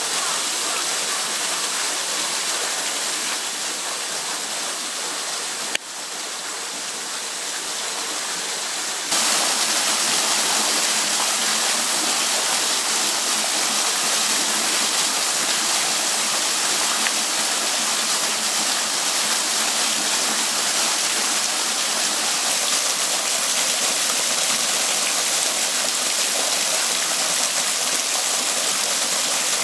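Waterfall rushing, a steady hiss of falling water that jumps abruptly louder and brighter about nine seconds in, with a brief click a few seconds before that.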